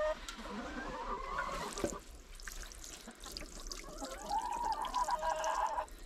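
Water pouring from a plastic watering can into a rubber water bowl, refilling it with fresh water, from about two seconds in. Hens give drawn-out calls at the start and again near the end.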